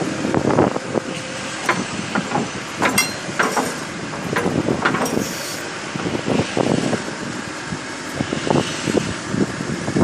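1996 John Deere 710D backhoe loader's diesel engine running under hydraulic load as the backhoe boom is worked and raised, with scattered clanks and knocks through it.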